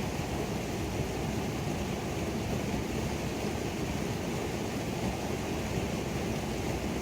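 Waterfall on a creek: a steady, even rush of falling water, deep and full with little hiss.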